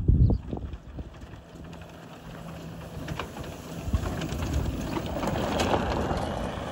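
Club Car golf cart driving by, its motor humming steadily for the first few seconds. A low thump of wind on the microphone comes at the start, and a rising hiss of tyres crunching over gravel follows near the end.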